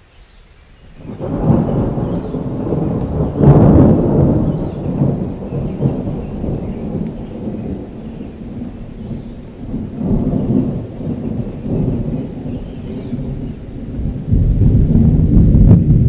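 Rolling thunder rumbling low, building about a second in, loudest just under four seconds in, easing, then swelling again near the end.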